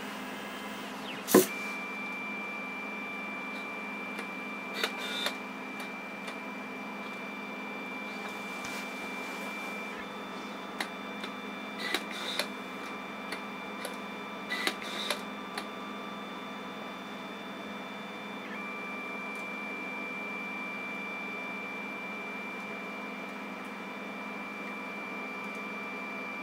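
Desktop CNC pen plotter running: its stepper motors give a steady hum and a high whine as the gantry drives the pen across the paper. The whine drops out for several seconds partway through and then resumes, with scattered sharp clicks and ticks from the mechanism.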